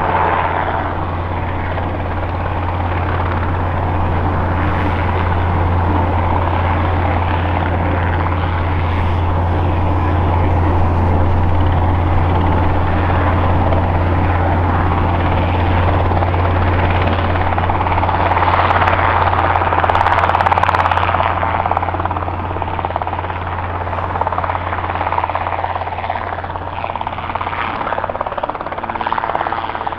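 Robinson R22 Beta II helicopter hovering just above the grass, its rotor and four-cylinder Lycoming piston engine running steadily with a strong deep hum. The noise swells for a few seconds about two-thirds of the way through.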